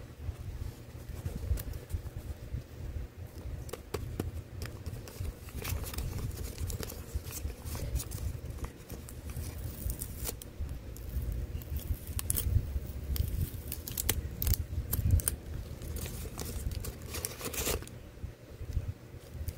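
Paper and clear plastic wrapping rustling and crinkling as it is handled and pulled open, with many irregular sharp crackles that come thickest in the second half, over a steady low rumble.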